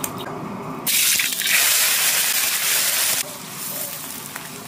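Chopped eel pieces dropped into hot rapeseed oil in a wok: a loud sizzle bursts up about a second in, then after about two seconds settles into a quieter, steady frying sizzle.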